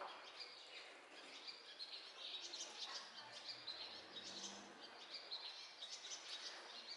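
Small birds chirping, with many short high calls overlapping, faint over a steady background hiss.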